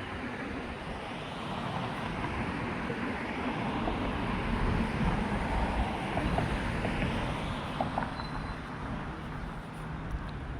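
Road traffic: a vehicle passing by, its tyre and engine noise swelling to a peak in the middle and then fading away.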